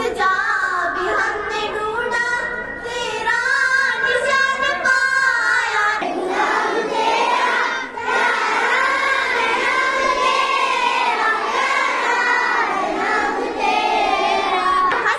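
A group of schoolchildren singing together in unison, holding long notes line by line, with short breaks between phrases.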